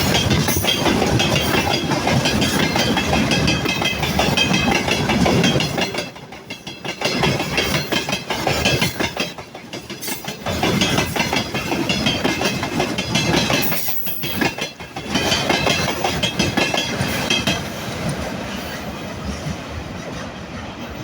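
Freight train of tank wagons rolling slowly past, its wheels clattering over the rail joints. The clatter dips briefly a few times and eases off over the last few seconds.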